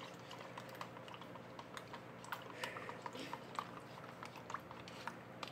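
A spoon stirring custard powder into water in a small plastic cup, making faint, irregular light clicks and scrapes against the cup as the paste is worked smooth.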